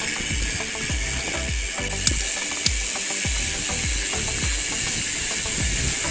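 Mountain bike rolling along a dirt trail: a steady hiss of the tyres on dirt and gravel, wind buffeting the microphone, and a couple of sharp rattles of the bike about two seconds in.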